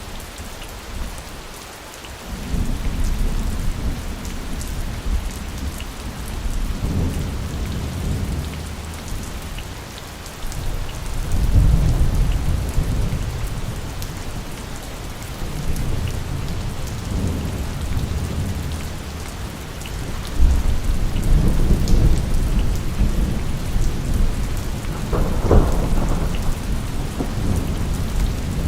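Steady heavy rain with rolling thunder: low rumbles swell and fade several times, the strongest roll starting about eleven seconds in and another long one in the last third.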